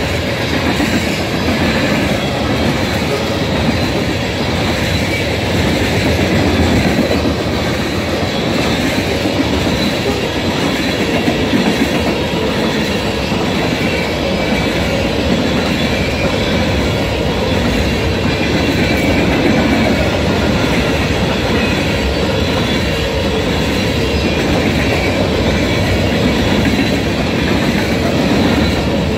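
Freight cars of a long mixed manifest train, tank cars and open-top cars, rolling past at speed: a loud, steady rumble with wheel clatter over the rails.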